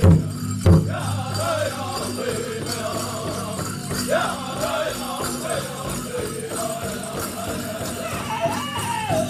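Powwow drum group singing a chicken dance song, the big drum struck hard in a steady beat that drops out about a second in while the voices carry on; dancers' leg bells jingle under the singing.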